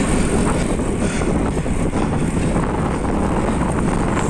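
Steady wind rush buffeting the microphone of a camera carried on a road bike at racing speed, mixed with the hum of the bike's tyres on a concrete road.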